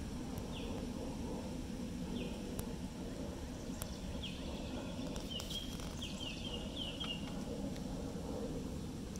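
A bird chirping: short, high notes that slide downward, a few spaced out and then several in quick succession in the middle, over a steady low background rumble.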